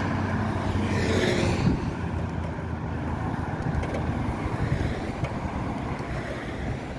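A car driving along a city street, heard from inside: steady engine and road noise, with a brief whoosh about a second in, then the noise slowly easing off.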